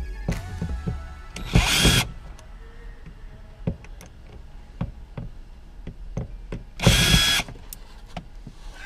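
Power drill with a screwdriver bit running in two short bursts, about a second and a half in and again about seven seconds in, backing out the sun visor mounting screws in the headliner. Light clicks and taps come between the bursts.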